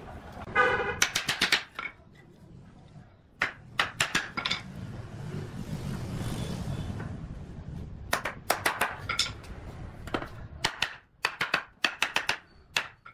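Claw hammer tapping wooden chair rails and legs together, driving tenons home into their mortises, in several quick runs of blows. A brief squeak near the start and soft rubbing of wood being handled in the middle.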